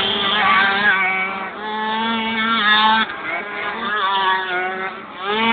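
Several 70 cc two-stroke racing scooters running hard, their engine pitches rising and falling and overlapping as they rev through the course. The sound drops briefly about three seconds in and again near five seconds, then swells back up.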